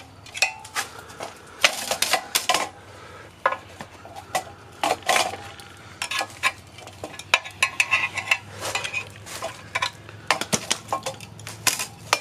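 Irregular metal clinks and clanks of hand tools and bolts as a car's clutch and pressure plate are unbolted and taken off the flywheel.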